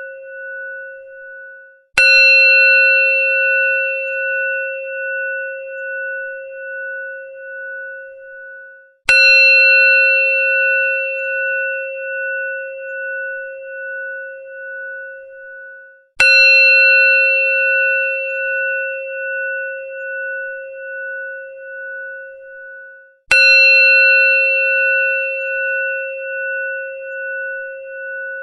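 Temple bell struck four times, about seven seconds apart. Each strike rings a clear pitched tone that dies away slowly with a wavering beat. The tail of an earlier strike fades out near the start.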